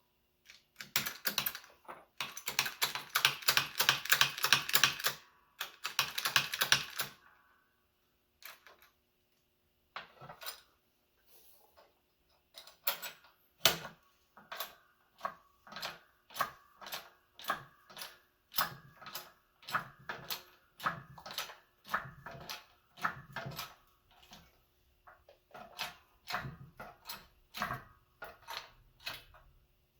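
Shop press working a lower ball joint into a control arm. First comes a few seconds of rapid metallic clicking, then a regular series of clanks, about three every two seconds, as the joint is pressed home until it bottoms out.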